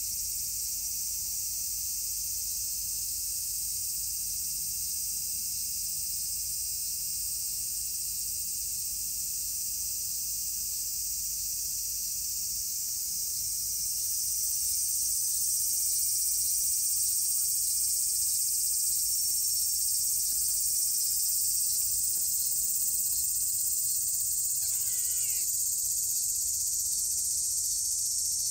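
Continuous high-pitched chorus of insects, growing louder about halfway through.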